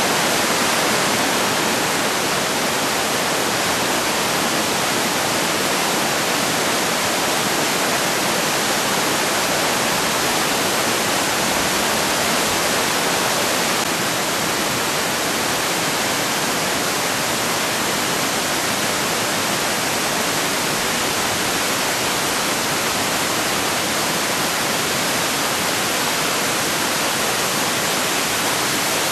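Amicalola Falls, a tall cascading waterfall, pouring down rock ledges: a loud, steady rush of falling and splashing water that never lets up.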